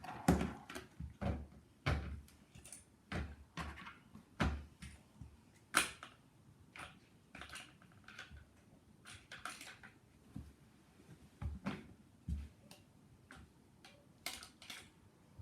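Irregular taps, clicks and knocks of small toys being handled and set down, as fidget toys are stacked and put away in a box. The knocks come thick and fast in the first half and thin out later.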